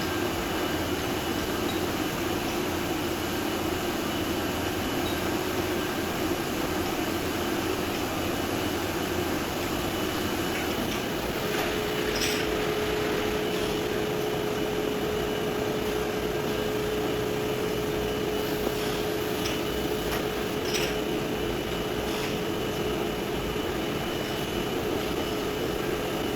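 Jam production line machinery running with a steady hum and hiss. A new steady tone joins a little before halfway, and a few light clicks come through.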